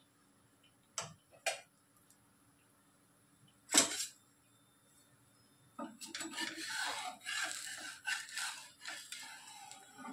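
Metal spatula on a dosa tawa: a few short taps, then a sharp knock, then several seconds of steady scraping as the spatula works under the edge of an egg dosa to loosen it from the griddle.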